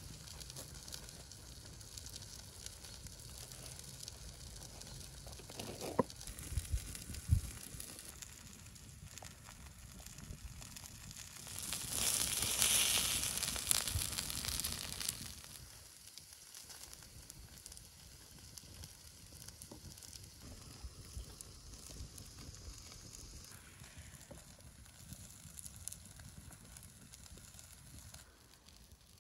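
Beef burger patties topped with cheese sizzling on a hot stone slab over a wood fire, loudest for a few seconds midway, over a steady crackle of the fire. A couple of sharp knocks sound early on.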